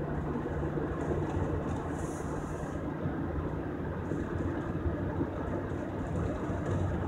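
Steady road and engine rumble inside the cab of a 2003 GMC Sierra pickup being driven. The freshly rebuilt front end gives no rattle.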